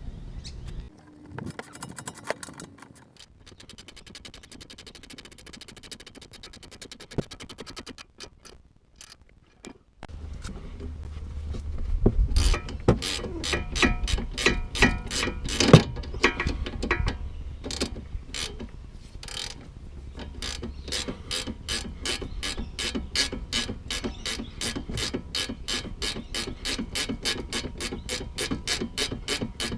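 Hand ratchet clicking while tightening the nuts on aftermarket sway bar end links, in runs of rapid fine clicks at first, then after a brief pause louder, uneven strokes, settling into steady back-and-forth clicking at about three a second near the end.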